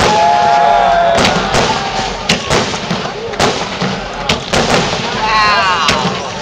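Aerial firework shells bursting overhead in an irregular series of about a dozen sharp bangs.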